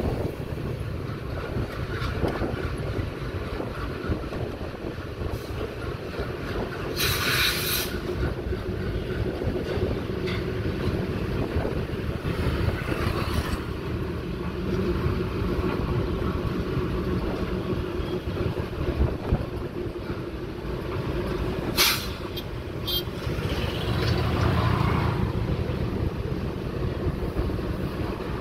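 A WDG3A diesel locomotive's 16-cylinder ALCO engine running with a steady low throb while it hauls a passenger train slowly over a steel rail bridge, with a few sharp clanks a little past the two-thirds mark.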